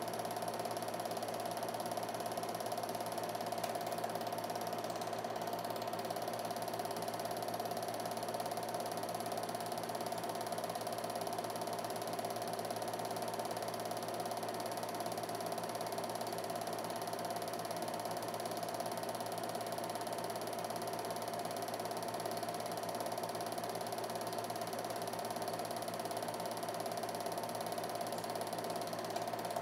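Film projector running: a steady mechanical whir and clatter from the film-advance mechanism, with a constant mid-pitched hum that does not change.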